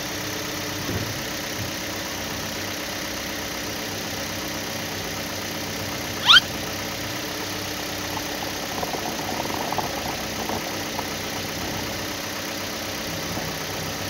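Steady engine idling sound with a constant hum. About six seconds in, a short, loud chirp rises sharply in pitch.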